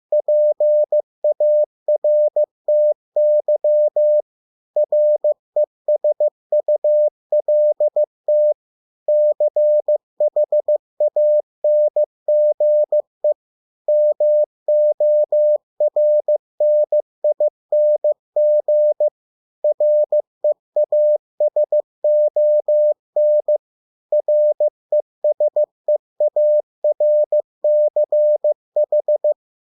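Morse code (CW) sent as a single steady tone keyed on and off in dots and dashes at 15 words per minute, spelling out English words one at a time with short pauses between the words.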